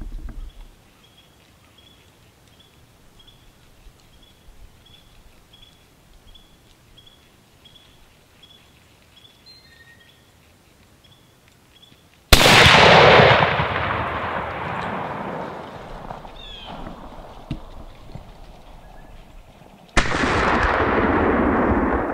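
Two rifle shots from a scoped deer rifle: the first about halfway through, with a sharp report that echoes and dies away over several seconds; the second, similar report comes near the end. Before the first shot, a bird repeats a short high note about twice a second.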